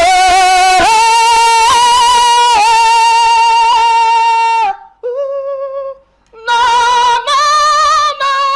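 A man singing a cappella in a high voice, holding long notes with vibrato. One long phrase runs for over four seconds, then comes a short softer phrase, a brief pause, and another loud phrase near the end.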